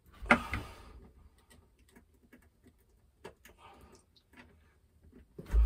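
Small clicks and taps of a screwdriver and cable being worked at the screw terminals of a solar charge controller. There is a sharper knock just after the start and a dull thump near the end.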